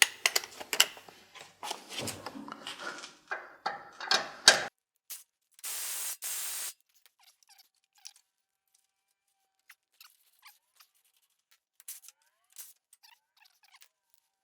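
Wrench and socket clicking, clinking and scraping on metal while the 14 mm bolts of a truck's front bumper mounts are loosened. This is followed, about six seconds in, by a rasping burst lasting about a second, then only faint scattered ticks.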